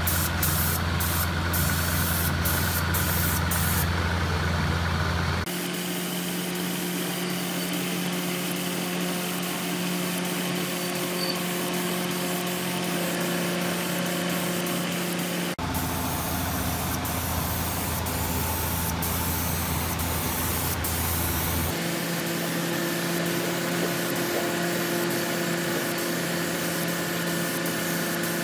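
Compressed-air gravity-feed spray gun hissing steadily as it sprays paint onto sheet metal, over a steady low machine hum. The hum changes abruptly three times.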